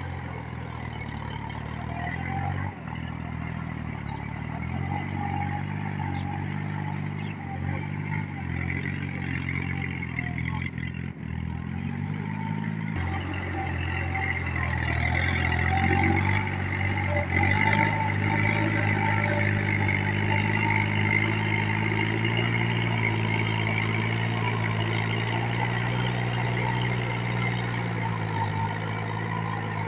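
Small tractor engine running steadily while pulling a rotary tiller through a flooded paddy, its pitch shifting a little with load. It grows louder about halfway through as the tractor comes near.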